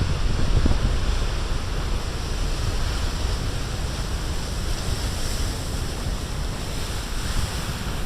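Big storm-driven waves breaking as a steady wash of surf, swelling a little about five seconds in, with wind rumbling on the microphone.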